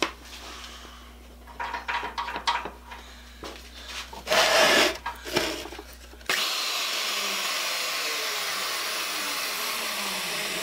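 Handling clicks and a short loud clatter as the Black & Decker 1 hp router is gripped on the bench. About six seconds in, its electric motor switches on and runs steadily and loudly, a hissing whir with a faint falling tone in it. The sound shows that the router, bought as not running, now starts and runs.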